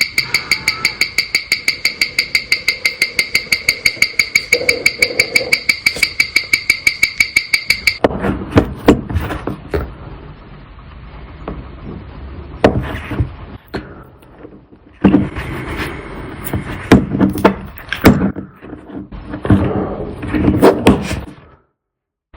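Rapid, regular ticking, several ticks a second, each with a ringing tone, for about eight seconds. Then irregular small clicks, taps and knocks come in clusters and stop suddenly near the end.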